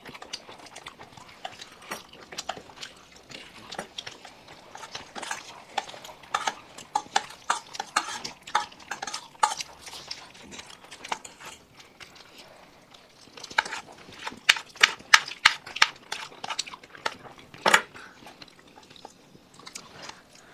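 Clinks, taps and scrapes of tableware while food is mixed and eaten from plates, with a quick run of clinks past the middle and one sharper knock near the end.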